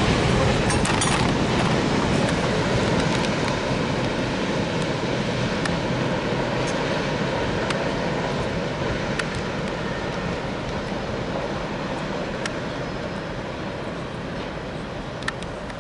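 Mixed freight train rolling past, a steady rumble of steel wheels on rail with a few sharp clacks, slowly fading as the train moves away.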